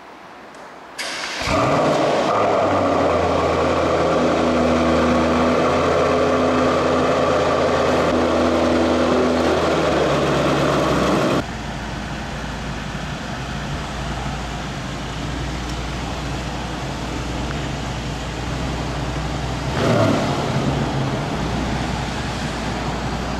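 Mercedes-AMG E63 S 4MATIC+ 4.0-litre twin-turbo V8 starting about a second and a half in and running at a loud, steady high idle. About eleven seconds in it drops to a quieter steady idle, with a short rise in revs near twenty seconds.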